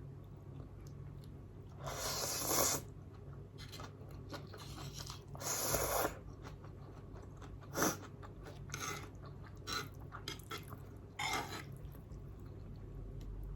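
Close-miked eating of Nongshim non-fried spicy instant noodles: irregular chewing and mouth sounds, with longer, louder bursts about two seconds in and again around six seconds, and a short sharp one near eight seconds.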